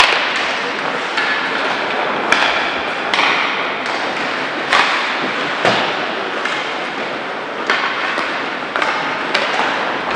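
Ice hockey play in a rink: irregular sharp knocks and taps of sticks on the puck and the puck off the boards, over a steady rink background noise.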